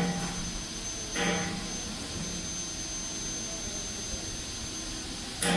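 Steady workshop machinery hum with a constant high-pitched whine, broken by short metal knocks, each with a brief ring, as tools are handled on the metal compressor casing: one right at the start, one about a second in and one at the very end.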